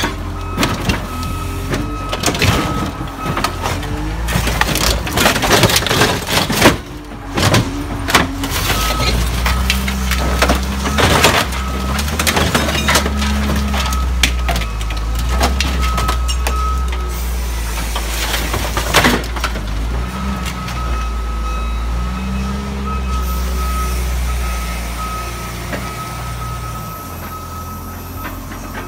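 CASE 721F wheel loader's diesel engine running under load while its grapple crushes and tears a scrap car, with repeated sharp crunches and bangs of metal and glass through the first half. Later the engine runs steadier with fewer impacts, and a thin steady high tone comes and goes.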